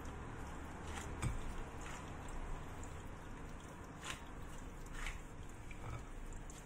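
Gloved hand kneading and squeezing soft, crumbly cookie dough in a glass bowl: a soft, squishing sound with a few faint clicks.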